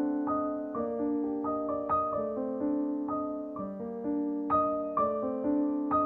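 Piano background music: single notes played one after another in a steady, flowing pattern, two or three notes a second.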